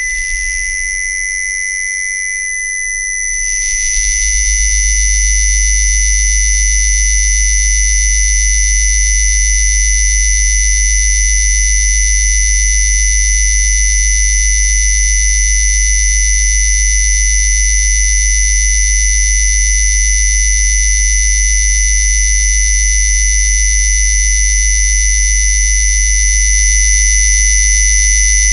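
Electronically generated test tones: a steady, high-pitched whistle made of several pure tones at once. About four seconds in, a deep, steady low hum joins it and holds to the end.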